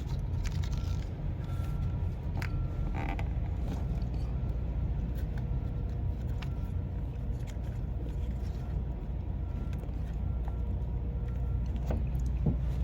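Steady low rumble with a few light clicks and a faint, broken high tone.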